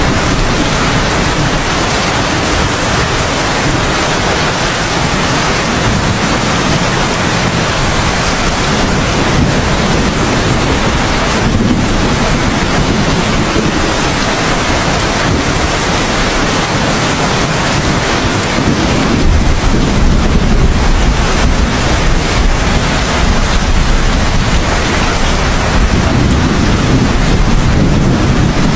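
Steady heavy rain, with a low rumble of thunder rising about two-thirds of the way through and rolling on.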